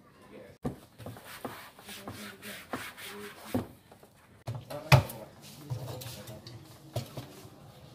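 Used plastic drums being handled and padded seats pressed onto their rims: irregular hollow knocks and rubbing or scraping. The loudest knock comes about five seconds in.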